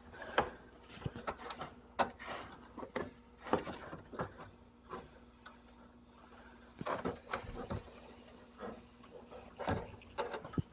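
Scattered light clicks, taps and rustles of hands handling tools and a phone, over a faint steady hum.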